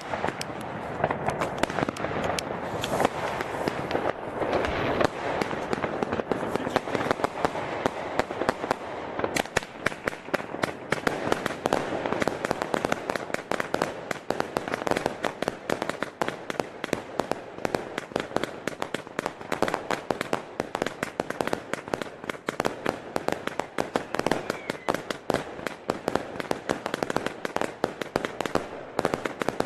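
Magnum 400 Shots Mega Display Box, a 400-shot firework compound, firing a long, continuous rapid volley of shots, many a second.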